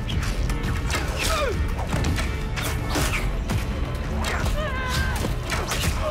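Battle-scene soundtrack: a dramatic orchestral score over repeated clashes and thuds of weapons striking wooden shields. Men's shouts and cries rise out of it about a second in and again near five seconds.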